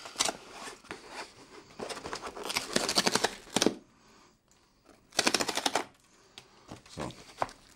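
Perforated cardboard tear strip being ripped along an Amazon shipping box: a rapid crackling rip, in two pulls about two and five seconds in.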